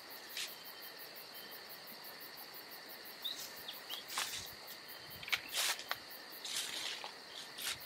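Outdoor ambience: a steady high insect drone runs throughout, with a few short bird chirps about three seconds in. In the second half come several brief crunches, like steps on dry leaf litter.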